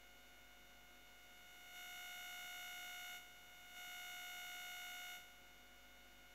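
Two long, steady beeps, each about a second and a half, with a short gap between them, over a faint steady whine.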